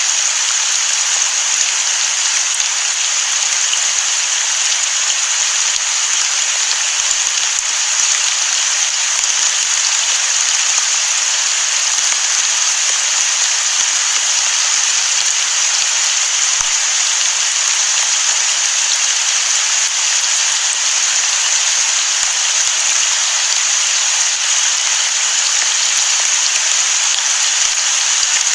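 Steady heavy rain: a dense, even hiss of falling drops with no thunder.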